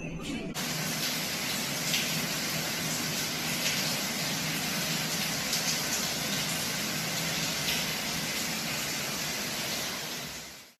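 A steady, even rushing noise that starts abruptly about half a second in, with a few faint clicks, and fades out near the end.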